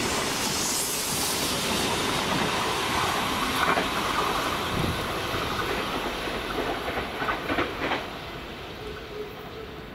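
A train running past on the line, its wheels clattering over the rail joints, with a steady rushing noise that falls away after about eight seconds.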